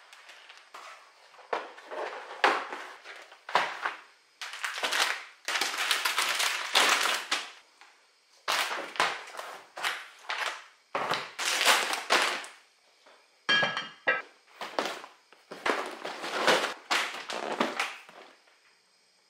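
Plastic-wrapped food packages and cardboard boxes being handled and set down on a wooden table: an irregular run of crinkling and rustling with occasional knocks, dying away near the end.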